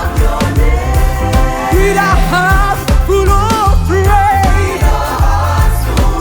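Live gospel band music: a heavy bass and drum beat under sustained chords, with a wavering lead melody repeating short bending phrases.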